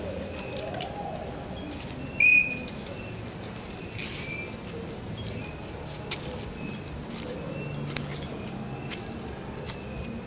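Crickets trilling steadily and high-pitched. A brief, loud, high squeak cuts through about two seconds in, with a few faint clicks here and there.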